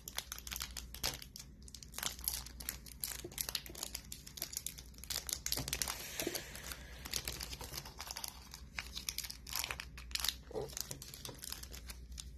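Foil wrapper of a Pokémon booster pack crinkling and tearing as it is pulled open by hand, in many short irregular crackles.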